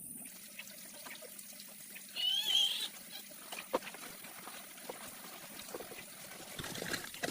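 Water trickling and dripping, with scattered small clicks. A short, high, wavering call cuts in about two seconds in.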